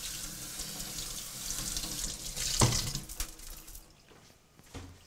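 Kitchen faucet water running through a fine mesh strainer of lentils as they are rinsed, splashing into a stainless steel sink. A single knock comes about two and a half seconds in, and the water fades away around four seconds in.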